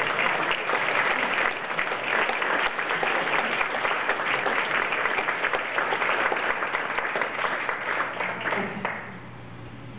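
Audience applauding steadily, dying down about nine seconds in.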